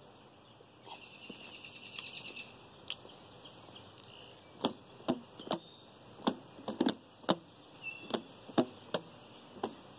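A series of irregular sharp clicks and taps, a dozen or so spaced unevenly over the second half, as a hard plastic object with clawed pieces is handled and tapped. Before them comes a faint, fast buzzing trill lasting about a second and a half.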